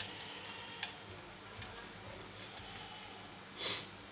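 Small clicks and rustles from a computer power supply's wire bundle and connector being handled, with a short louder rasp near the end. A faint steady low hum runs underneath.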